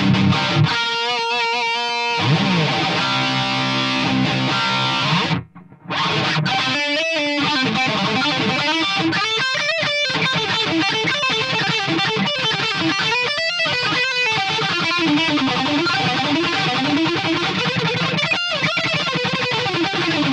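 Electric guitar (a Gibson SG) played through a Line 6 Spider IV 15 amp on its Metal channel, with medium distortion, taken direct from the amp's record output. Lead phrases and riffs, with held notes shaken in vibrato at the start and a brief stop about five and a half seconds in.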